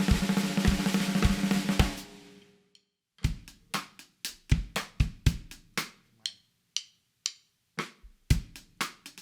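Drum kit played to show off a CMC maple and bubinga 14x6.5-inch snare drum. A dense, loud run of hits over a steady bass drum pulse rings out about two and a half seconds in. After a brief pause, a sparser groove of separate snare and bass drum strokes starts.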